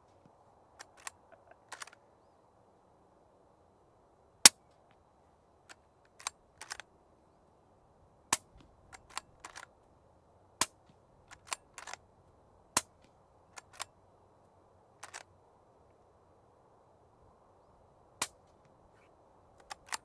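Suppressed bolt-action rifle under an AB Raptor 7.62 suppressor, firing subsonic 220-grain rounds: five sharp, fairly quiet cracks, the one about four seconds in the loudest. Between shots come clusters of lighter metallic clicks from the bolt being worked.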